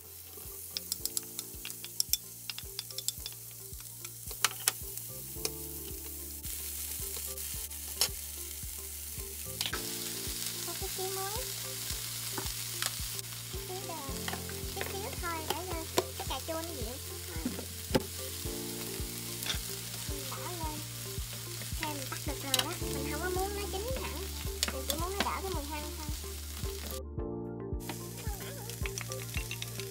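Diced onion sizzling in hot oil in a nonstick frying pan as it is sautéed, stirred with a wooden spatula that scrapes and taps against the pan. The sizzle starts as the onion goes in and grows louder over the first few seconds.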